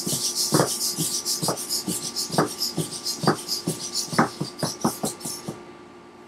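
Hexapod robot's Tower Pro MG90S micro servos whirring in rapid, stuttering bursts as it walks, with its feet knocking irregularly on the hardwood floor. The whirring stops about five and a half seconds in, when the robot comes to rest.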